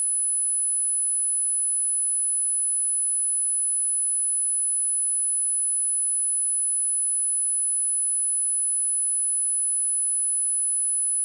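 A pure sine-wave test tone at 10077 Hz, a single high-pitched steady whistle held without change.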